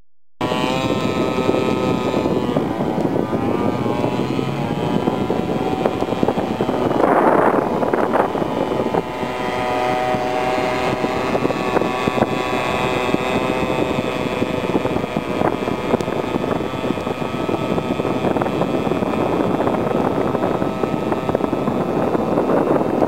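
Homemade radio-controlled boat's motor running at high revs as the boat speeds across the water, a steady high whine that wavers in pitch now and then, over a hiss of water and wind, with a brief rush of noise about seven seconds in.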